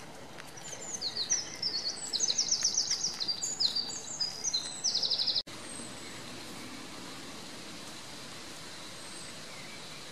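A small songbird singing a loud, rapid, varied trilling song of quick repeated high notes for about five seconds, cut off abruptly. After that comes steady outdoor background with a few faint distant bird notes.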